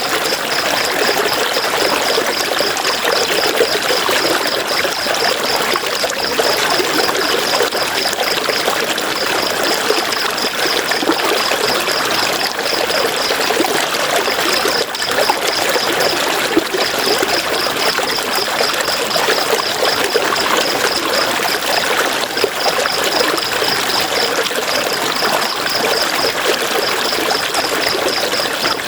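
River water flowing in a steady rush with a trickling, burbling texture. A high, evenly pulsed chirping runs over it in long stretches with short breaks.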